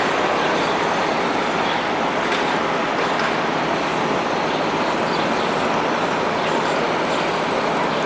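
Steady, unbroken rumble and hiss of a vehicle in motion.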